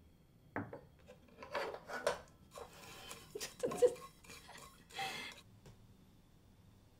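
Light, irregular clatter and scraping of dishes and utensils, a few seconds of scattered knocks that die away near the end.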